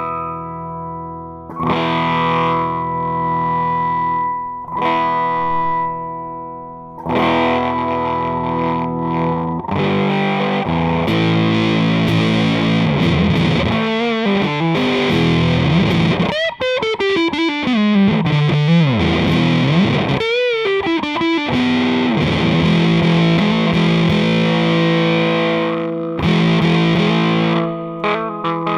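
Electric guitar on its bridge humbucker, played through an Arcane Analog clone of the Earth Sound Research Graphic Fuzz into a Fender Hot Rod Deluxe amp. Fuzzy chords are struck and left ringing, and through the middle the pedal's resonant filter sweeps the tone down and back up in swooping glides.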